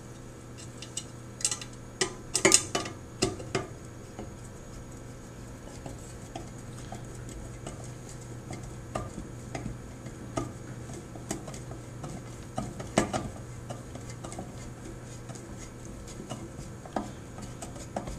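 Small metal-on-metal clinks and ticks as a screw is started by hand in a freshly tapped hole in a thin steel enclosure lid and turned in with a hand screwdriver. A cluster of louder clinks comes about two seconds in, with sparser light ticks after, over a low steady hum.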